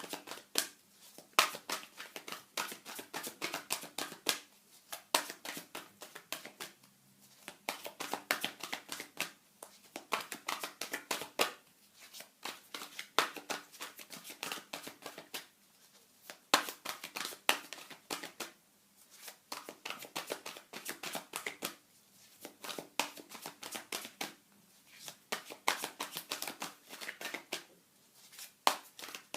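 Deck of tarot cards being shuffled by hand: runs of quick flicking and slapping of card edges in bursts of a few seconds, with short pauses between.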